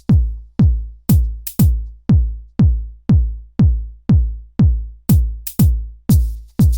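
Electronic dance music with a deep kick drum on every beat, about two a second, and occasional cymbal-like hits.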